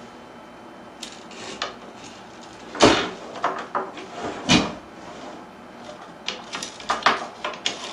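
Knocks and clicks of curtain-track parts being handled during assembly, with two louder knocks about three and four and a half seconds in and a run of small clicks near the end.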